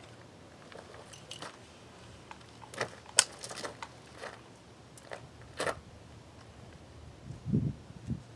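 Handling noise from an AR-style .223 rifle being lifted and shouldered: a few sharp clicks and light knocks, the loudest about three seconds in, then a soft low thump near the end.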